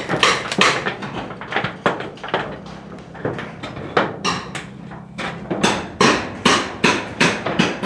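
Hand-tool hammer blows on a rusty corrugated iron roof, irregular, one or two a second, each with a short ring. The old roofing sheets are being knocked loose for removal.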